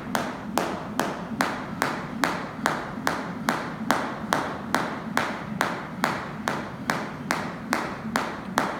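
Jump rope slapping a rubber gym floor once per turn in a steady rhythm of about two and a half strikes a second, during continuous single-under skipping.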